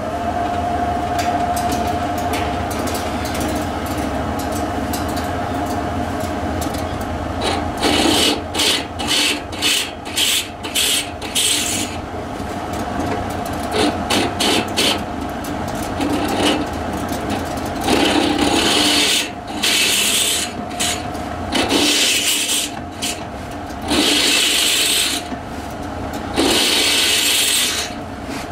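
Waldown variable-speed drill press running with a steady motor hum, its twist drill cutting into a cast-iron compressor crankcase. From about eight seconds in, the cutting comes in many short, uneven bursts of high-pitched scraping as the bit is fed into the metal.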